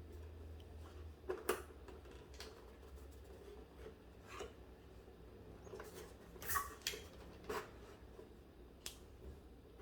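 Scattered light clicks and taps at irregular intervals, loudest about a second and a half in and again past the middle, over a low steady hum.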